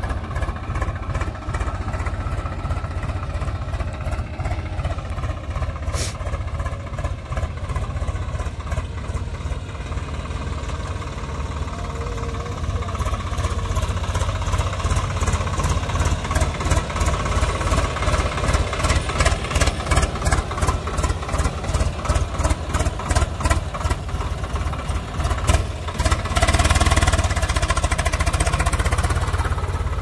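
Swaraj 744 XT tractor's three-cylinder diesel engine working under load as it tows a trailer heaped with soil through loose sand, with a steady exhaust beat. The engine grows louder from about halfway and is loudest near the end as it is worked harder.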